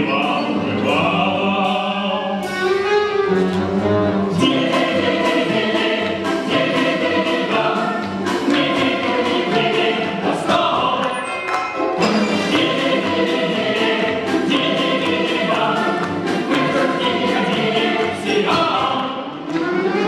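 Two male voices singing an operetta duet in Russian, accompanied by an orchestra of Russian folk instruments with domras and balalaikas plucking quick notes.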